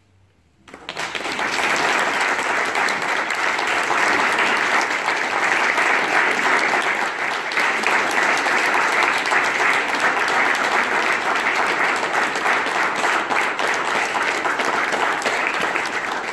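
Concert audience applauding. The clapping breaks out suddenly just under a second in, after a moment of near silence, and keeps up loud and dense.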